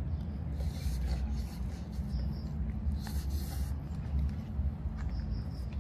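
A person slurping and eating instant fried noodles from a cup, with two noisy sucking slurps, one about half a second in and one about three seconds in, over a steady low rumble. Short high chirps sound now and then in pairs and threes.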